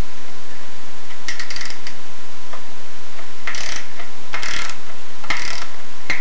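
Socket ratchet clicking in four short bursts of rapid clicks as the valve cover bolts of a Briggs and Stratton OHV engine are turned out.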